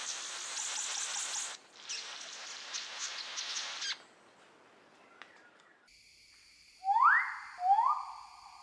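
Two loud animal calls about a second apart, each sweeping up in pitch and then levelling off, near the end. Before them comes a few seconds of dense, hissy chatter with quick chirp-like flicks, then a short quiet gap.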